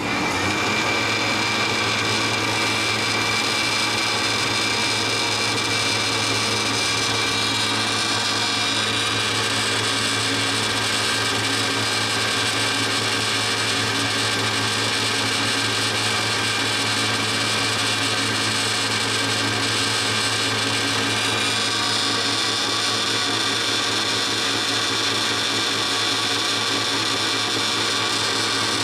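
DoALL C-70 horizontal band saw running: a steady motor hum under a continuous high-pitched blade whine. The sound comes up to full loudness right at the start, and the high whine changes character about 8 seconds in and again around 22 seconds.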